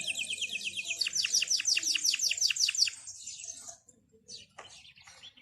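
Small songbirds chirping: a fast, high trill of rapidly repeated down-sweeping notes for about three seconds, then quieter, scattered chirps.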